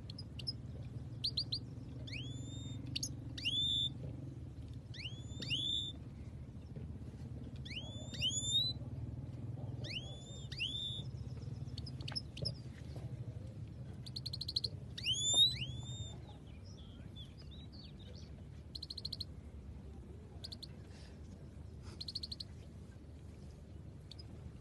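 Caged goldfinches singing: repeated short whistled notes that sweep upward, in quick pairs and runs, mixed with brief buzzing trills. A low hum sits underneath and fades about two-thirds of the way through, and the singing thins out after that.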